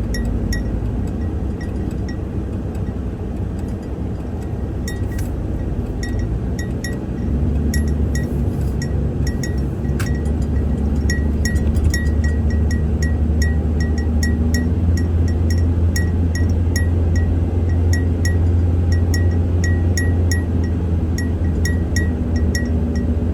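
Vehicle engine and road noise heard from inside a moving vehicle, the low rumble growing louder about seven seconds in as it speeds up, with a light ticking about twice a second over it.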